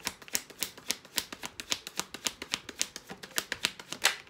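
Tarot deck being shuffled by hand: a rapid, even run of card slaps, about six a second, with one louder snap near the end.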